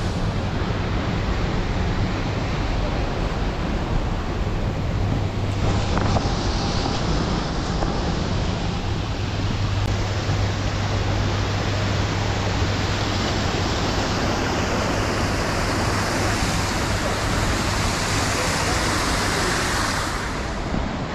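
Steady rushing of a mountain river, with a low steady hum underneath that fades out about two-thirds of the way through. The hum is guessed to be a turbine running at the small hydel power plant.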